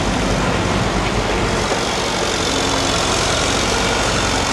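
Diesel engines of a wheeled excavator and a backhoe loader running steadily close by.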